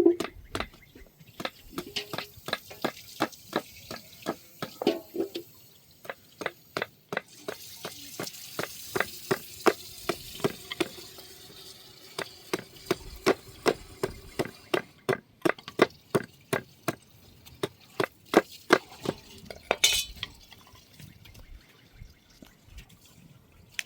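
A cooking utensil knocking over and over, two or three sharp strikes a second, in food preparation, with a soft hiss joining for a few seconds in the middle; the knocking stops a few seconds before the end.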